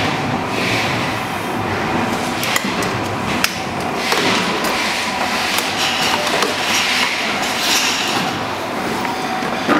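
Steady clattering noise with a few sharp knocks, from screwdriver work on the plastic body and motor housing of a ride-on toy buggy.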